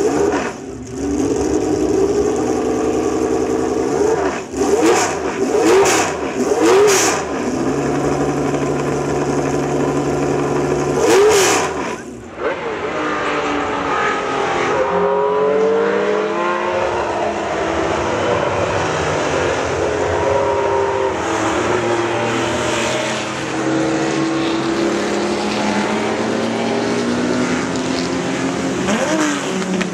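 V12 Ferrari race car engine idling, blipped sharply four times. Then several vintage Ferrari V12 GT race cars pass at speed, their engine notes rising and falling as they go by.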